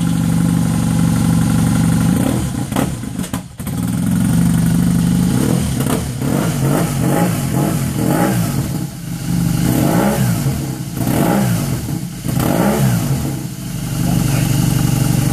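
BMW R1200 GSA boxer-twin engine running through its stock muffler, which has been modified for a louder exhaust note. It idles steadily, then from about five seconds in the throttle is blipped repeatedly, the revs rising and falling several times, before it settles back to idle near the end.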